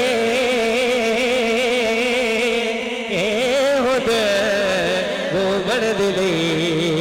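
A man's voice sings a long, drawn-out, wavering melismatic note of a Punjabi devotional naat through a microphone and PA, with the pitch sliding and bending. Underneath are steady sustained tones.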